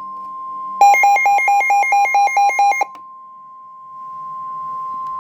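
NOAA Weather Radio warning alarm tone: a steady single tone near 1 kHz, which signals that a warning message follows. About a second in, a loud electronic beeping alarm pulses over it at about five beeps a second for two seconds, then stops, leaving the steady tone alone.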